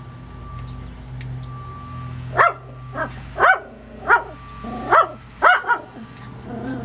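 A dog barking: about seven short, sharp barks in an uneven run, starting a couple of seconds in, over a steady hum.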